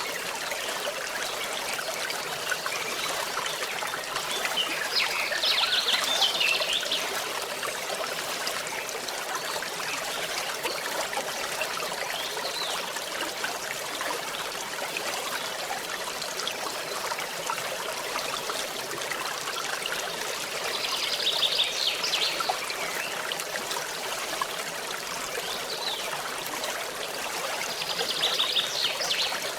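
Forest stream trickling and babbling steadily, with short high bird trills over it about five seconds in, again past twenty seconds, and near the end.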